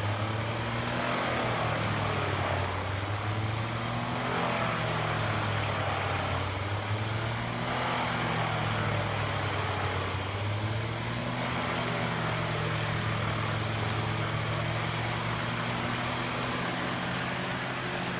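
A Morbark 4036 drum chipper running while it chips treetops, its big diesel engine holding a steady low note under the noise of the drum and feed. The engine note dips briefly and recovers several times, as it takes load from the wood being fed.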